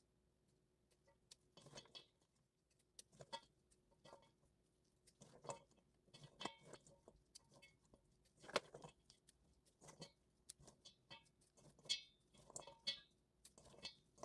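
Kitchen scissors snipping through strips of peeled bellflower root (doraji) in a stainless steel bowl. The snips are short, faint and irregular, one or two a second, with the loudest about halfway through.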